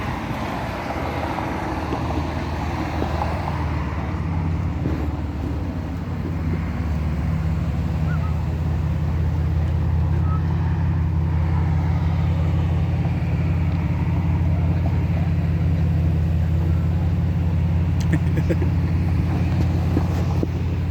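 A motor vehicle's engine running close by, a steady low rumble that grows louder a few seconds in and then holds.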